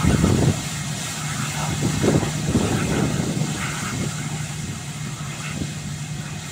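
Airbus A320-232's IAE V2500 jet engines running at low thrust as the airliner rolls out slowly after landing: a steady low hum with a faint steady tone, slowly fading as it moves away.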